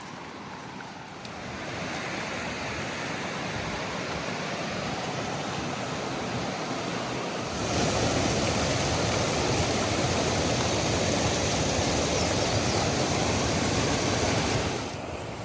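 A waterfall's rushing water, a steady dense roar. It grows louder about a second in, louder again about halfway through, and drops just before the end.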